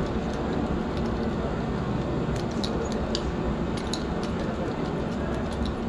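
Small metal clicks and snips of pliers working the steel wire strands on a truck tyre's sidewall, a few sharp clicks in quick succession about halfway through, over a steady background noise.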